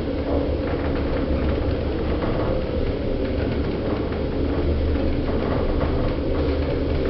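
Passenger lift car travelling between floors, heard from inside the car: a steady low hum and rumble of the lift's drive and car in motion, with a few faint clicks.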